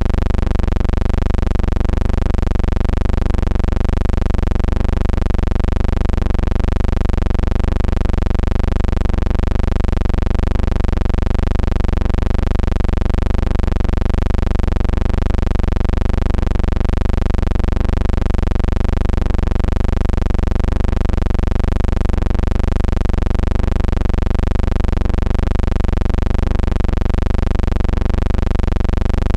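Steady loud low hum with a slight regular pulsing and nothing else: the background noise of an old silent film transfer.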